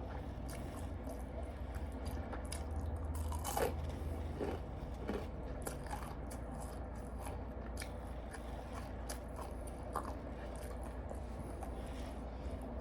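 A person chewing and biting into fried fish, with small scattered crunches and mouth clicks over a steady low hum.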